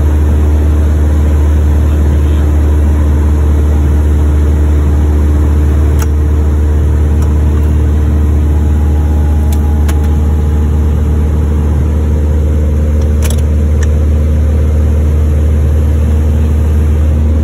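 Mooney M20E's piston engine and propeller running steadily in flight, heard as a loud, even drone inside the cabin. A few light clicks come through over it.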